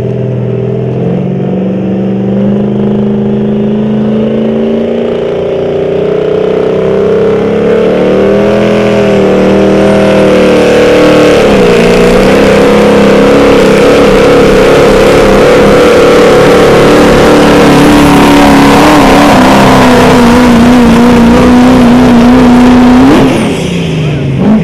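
Turbocharged diesel pickup engine at full throttle under heavy load, pulling a weight-transfer sled; loud, its pitch climbing slowly for the first ten seconds or so and then holding high and steady. Near the end the throttle is let off and the engine note drops away suddenly.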